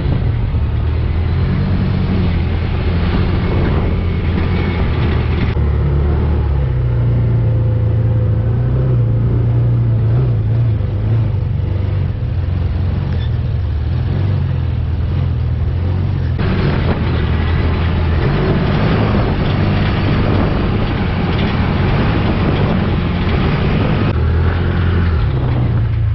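Engine of an open side-by-side UTV running under way on a rough dirt trail, its low drone shifting up and down in pitch with the throttle, over steady wind and trail noise that is louder for the first few seconds and again in the last ten.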